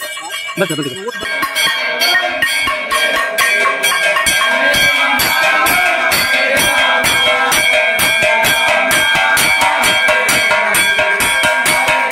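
Temple aarti: a brass bell rung over and over against a fast, even beat of struck percussion, with lasting metallic ringing, starting about a second in.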